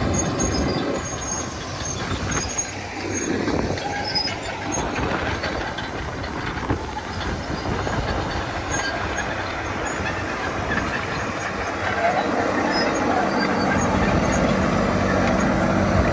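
Komatsu D61EX crawler dozers' diesel engines running loud. About twelve seconds in, the engine note grows louder and steadier.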